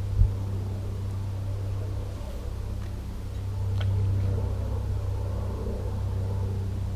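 A low, steady engine drone, like a distant motor vehicle, that grows louder for a couple of seconds from about four seconds in.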